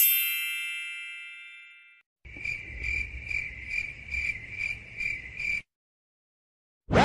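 Sound effects in sequence: a bright bell-like ding that rings out and fades over about two seconds. Then a high, shrill chirp pulsing about two and a half times a second, which stops suddenly. Just before the end a loud effect with sweeping tones starts.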